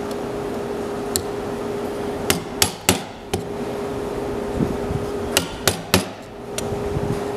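Bench chisel being struck to chop the waste out from between dovetail tails in a board: a series of sharp, irregularly spaced knocks, some coming two or three in quick succession, over a steady low hum.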